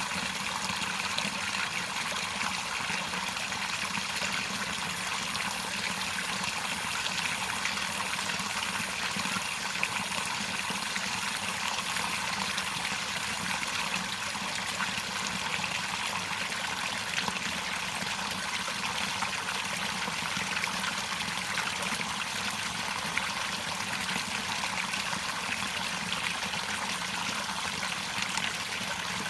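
Running water flowing steadily, an even rush with fine trickling detail.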